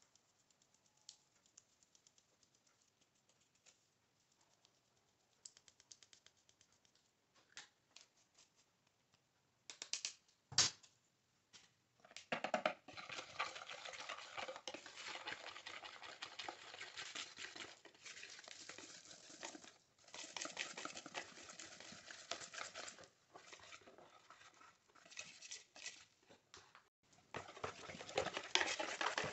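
Faint rustling and ticking of flour being sifted through a mesh sieve, then a single sharp knock about ten seconds in. From about twelve seconds, a wire whisk beats flour into egg-yolk cake batter in a plastic bowl: rapid scraping and clicking, with a few short pauses.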